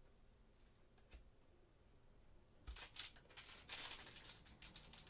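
Plastic wrapper of a trading card pack crinkling and crackling as it is handled, in a quick run of sharp crackles starting a little past halfway. A single light click about a second in.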